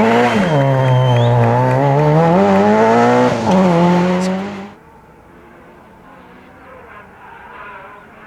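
Rally car engine at high revs, the pitch dropping and climbing again through gear changes. A little under five seconds in it cuts off abruptly to a much fainter, distant engine sound.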